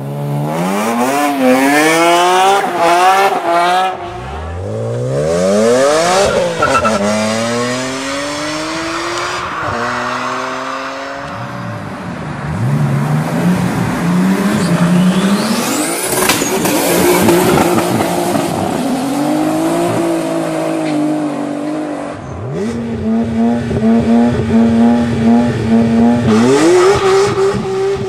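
BMW E46 engines revving and accelerating hard across several clips, their pitch climbing and falling again and again, with quick rev blips in the first few seconds. Tyres squeal under wheelspin.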